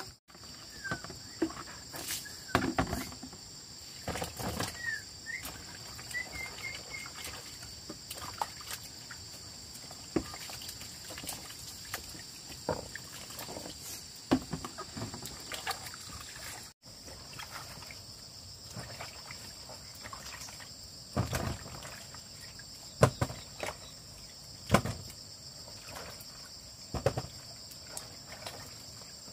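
Steady high-pitched insect chorus droning on two shrill notes, with scattered knocks, clatter and rustling of things being handled nearby.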